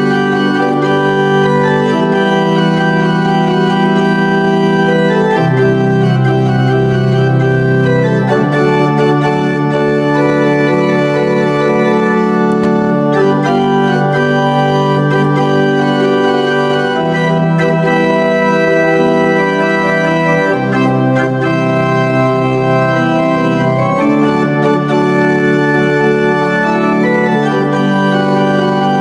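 Pipe organ played on two manuals: full sustained chords over held low notes that change every few seconds.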